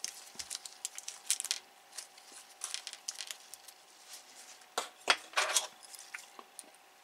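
Small metal screws tipped out of a small plastic bag, clicking onto a cutting mat, with the bag crinkling and plastic model parts being handled. Scattered short clicks and rustles, the loudest about five seconds in.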